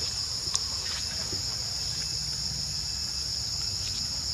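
Steady, high-pitched insect chorus droning without a break, with a low rumble underneath and a few faint ticks.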